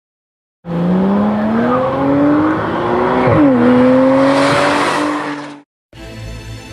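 Car engine accelerating hard. It starts abruptly, climbs in pitch, drops sharply with an upshift about three seconds in, then climbs again and cuts off suddenly.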